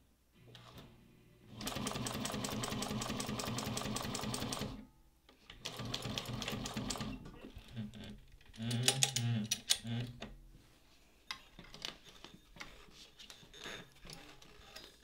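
Juki DNU-1541 industrial walking-foot sewing machine stitching through leather. A fast, even run of stitches lasts about three seconds, then comes a second, shorter run. After that there are a few slower, uneven clunks and clicks of the machine and the work being handled.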